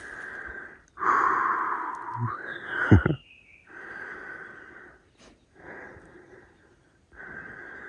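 Breathing close to the microphone, about five breaths a second or so long with short pauses between them. A short falling whistle-like note sounds a little after two seconds in, and a sharp knock about three seconds in.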